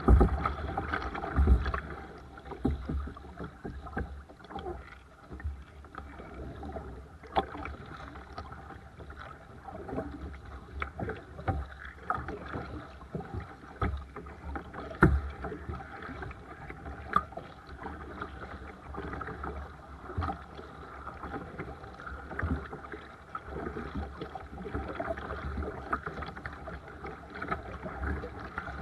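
Seabird Discovery sea kayak being paddled on the sea: water sloshing and lapping against the hull and paddle, with irregular splashes and knocks throughout.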